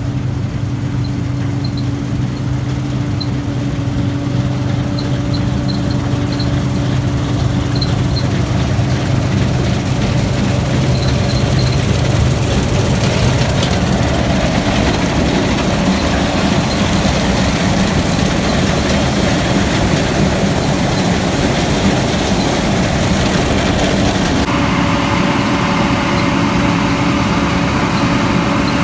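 Combine harvester running, a steady engine hum with a low drone. About halfway through, a louder rushing noise fills in over it, and the sound changes abruptly near the end.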